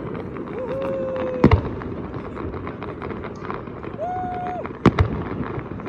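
Consumer fireworks going off: a scatter of pops and crackles, with two sharp loud bangs about a second and a half in and again near the end. Two long steady tones sound over them, a lower one early on and a higher one just before the second bang.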